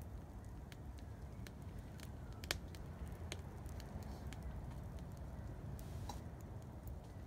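Small wood fire of sticks and kindling crackling in a metal kettle grill, with scattered sharp pops, the loudest about two and a half seconds in, over a low steady background rumble.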